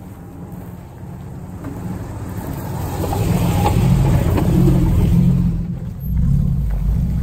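Nissan GQ Patrol 4WD engine running as the vehicle drives slowly over a ground-level microphone on a dirt track. It grows louder as it approaches and is loudest as it passes overhead about four seconds in, dips briefly near six seconds, then carries on.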